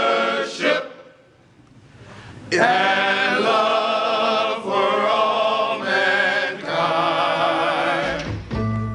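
A group of men singing a cappella in close harmony, holding long chords; they fall quiet for a moment about a second in, then come back in with several sustained phrases. Near the end, recorded band music with a bass line cuts in.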